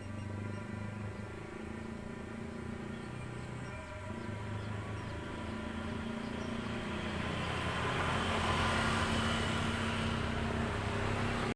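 FIMI X8 SE quadcopter's propellers humming steadily in flight, the hum growing louder toward the end and cutting off suddenly.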